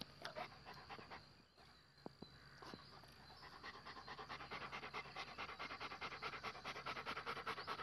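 A dog panting fast and close, in quick even breaths. The panting dies down about a second in and picks up again around three seconds in.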